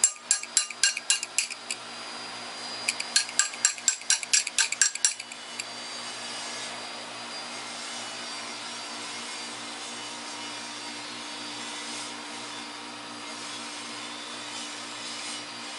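Ratchet wrench clicking in two quick runs of metallic clicks, about five a second, as a water pump bolt is backed out; after that only a steady low hum remains.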